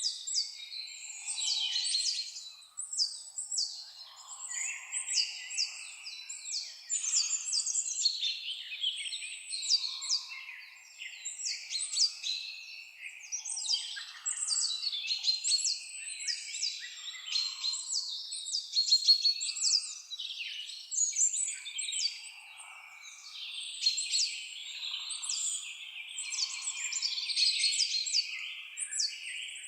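Several songbirds singing at once, a dense chorus of quick, high chirps and trills that overlap without pause.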